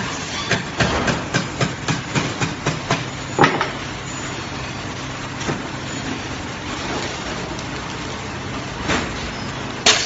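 Continuous band sealer running with a steady low hum, with a quick irregular run of clicks and taps in the first three seconds. A clear plastic bag rustles loudly as it is fed into the sealing band near the end.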